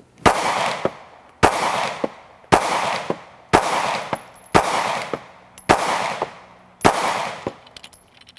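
Glock 43 9mm pistol fired seven times at a steady pace of about one shot a second, each shot trailed by a long echo, emptying the first magazine plus the round in the chamber.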